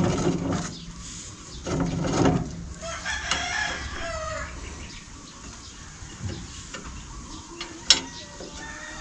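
A rooster crowing a few seconds in, one wavering call of about a second and a half. Before it, metal clanks from hand tools on the hand tractor's disc plow, and a single sharp metallic click near the end.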